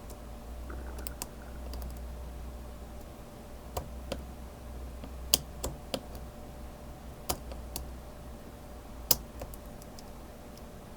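Lock pick clicking against the pins inside a Master Lock 911 padlock's keyway as it is picked, about a dozen sharp clicks at irregular intervals over a low steady hum.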